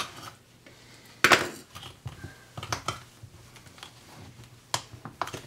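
Thin tin-can lid, punched open around the rim with a hole punch, being pried and bent back by gloved hands: scattered metal clicks, creaks and scrapes, the loudest about a second in.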